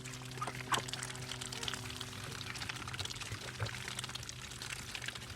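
Water from a garden hose pouring and splashing into water, with a steady low hum underneath.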